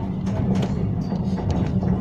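Tram running, heard from inside the car: a steady low rumble with a few scattered sharp knocks and clacks from the wheels on the curving track.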